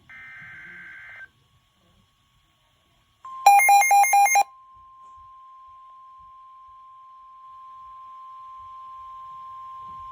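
The end of a SAME digital data burst from NOAA Weather Radio ends about a second in. A pause follows, then the weather radio's steady single-tone alert starts about three seconds in and holds. Over its first second it is overlaid with about five loud beeps. Together these mark the start of a new severe thunderstorm warning broadcast.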